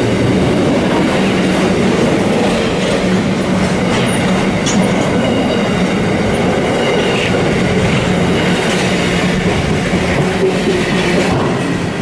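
Intermodal freight train's container wagons rolling slowly past on the rails: a steady rumble of wheels and wagons, with faint high wheel squeals now and then.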